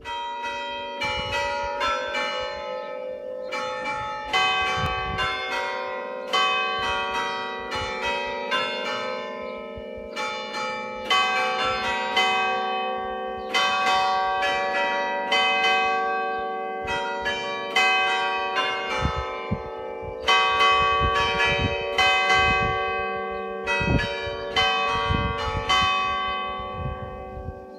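Five church bells in G, cast by Carlo Ottolina e Figli of Seregno in 1947, struck one after another in a melodic sequence at about one to two strokes a second. Each stroke rings on over the next with a steady hum beneath. The ringing dies away near the end.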